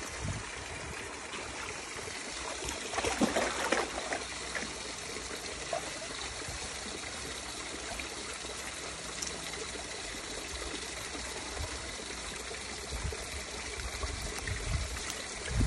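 Shallow stream trickling steadily, with a dog wading in the water and splashing, most loudly about three seconds in.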